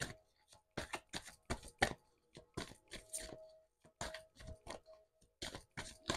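A deck of tarot cards being shuffled by hand: soft, irregular clicks and slaps of the cards against each other, faint throughout.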